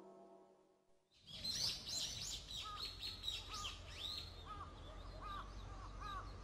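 Birds chirping busily, with a crow cawing again and again, starting about a second in.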